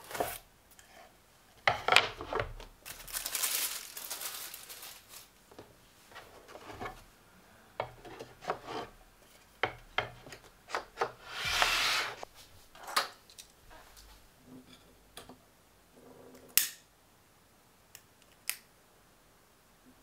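Bamboo serving tray being handled on a wooden table: its inset bamboo plates rub, slide and knock against the frame, with scattered swishes and a couple of sharp clicks near the end.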